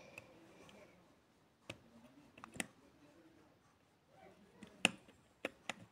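Faint, scattered clicks of a small screwdriver working the rear screw out of the base of a toy car: about six sharp ticks, two close together about two and a half seconds in and the loudest near the five-second mark.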